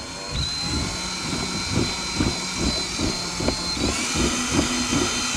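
Power drill running steadily with a high motor whine while it bores a hole through a car's bumper. The whine's pitch shifts slightly a moment in and again near the end, over irregular knocking and rasping as the bit is worked in and out.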